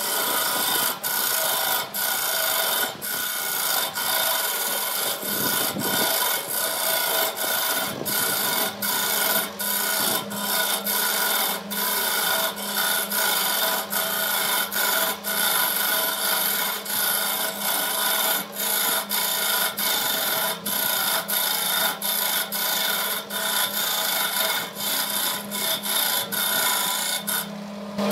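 Wood lathe turning a wooden vase, a hand-held turning tool scraping the spinning wood in a continuous rasping cut with many brief breaks, over the steady hum of the lathe. Near the end the cut stops for a moment and only the hum remains.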